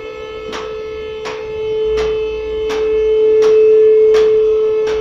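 Two-post car lift raising a vehicle: the electro-hydraulic pump motor runs with a steady hum that grows louder in the second half. A sharp click sounds about every three-quarters of a second as the lift's safety latches pass each lock stop.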